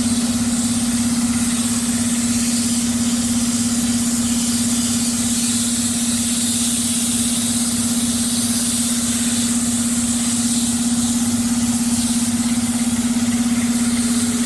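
Diesel engine of heavy road construction machinery running steadily: a constant hum with a regular low throb of about three to four pulses a second.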